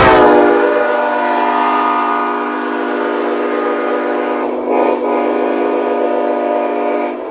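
Nathan Airchime K7HLA train air horn, a K5HA with two extra bells added, blowing one long, loud multi-bell chord. The pitch settles slightly as it starts, wavers briefly a little past halfway, and the blast stops and fades out at the end.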